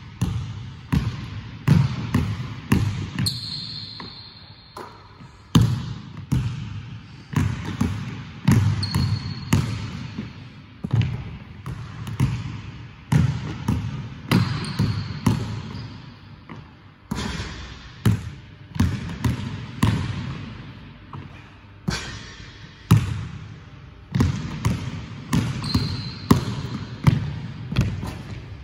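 Basketball dribbled on a hardwood gym floor: sharp bounces about one to two a second, each ringing on in the large hall, with a few brief high squeaks.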